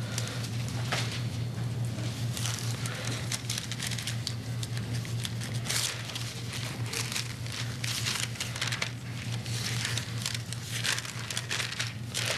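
Paper pages being leafed through and rustled close to a pulpit microphone, an irregular run of crinkling and crackling while a scripture passage is searched for. A steady low electrical hum runs underneath.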